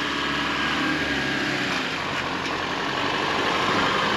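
Toyota Hilux 4WD's engine running at low revs as it crawls up a steep sandy slope, getting slowly louder as it comes closer.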